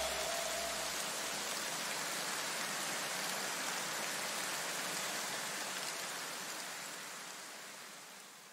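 A steady, rain-like hiss that fades out over the last few seconds.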